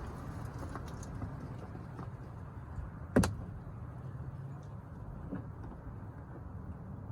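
A single sharp snap about three seconds in, with a few faint knocks later, over a low steady rumble: plastic door-panel clips being pried loose from a 2021 Kia K5's front door.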